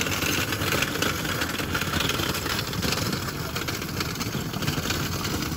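Small wheels of a folding hand trolley loaded with cardboard boxes rolling over rough asphalt: a steady rattling rumble.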